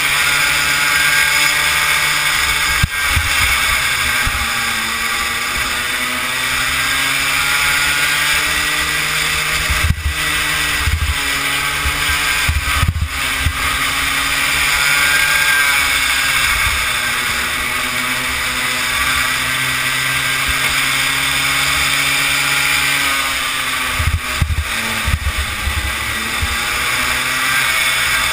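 Kid kart's small engine running hard at racing speed, heard from on board the kart. Its pitch dips and climbs back several times through the corners, over a rough low rumble of buffeting.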